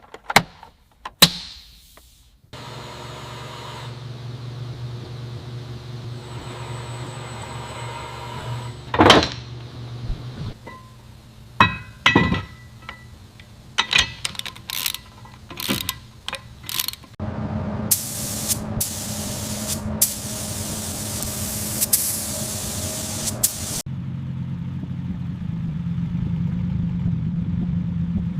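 Layered workshop sound effects for a car restoration. A steady low hum runs under scattered knocks and metallic clanks, then a run of hissing sprays comes in short bursts, and near the end a steady low machine hum is left on its own.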